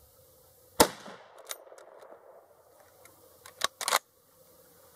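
A single shot from a Winchester Model 88 lever-action carbine in .308 about a second in, with its echo trailing off. Near the end comes a quick series of loud metallic clacks as the lever is worked to eject the spent case and chamber the next round.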